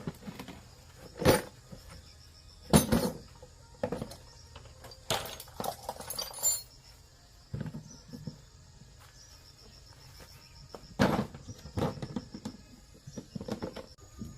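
Irregular metal clinks and knocks from hands and tools handling parts of an industrial crusher, with gaps of quiet between them and faint insects chirring throughout.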